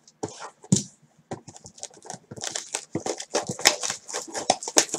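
Plastic shrink-wrap being torn and peeled off a sealed trading-card hobby box, an irregular run of crinkles and crackles that grows denser and louder in the second half.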